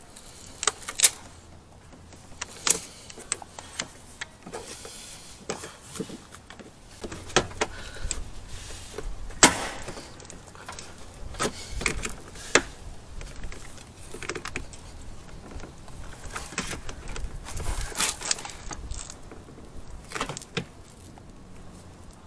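Irregular sharp clicks and plastic knocks as hands pry the Subaru WRX STI's plastic front-fender duct panel loose from its retaining clips.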